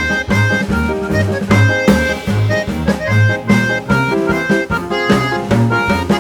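Instrumental background music with a steady beat, drums and a moving bass line under a melody of held notes.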